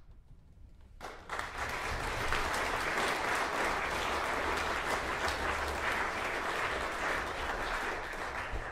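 Audience applause at the end of a performance, breaking out about a second in after a short hush and then holding steady.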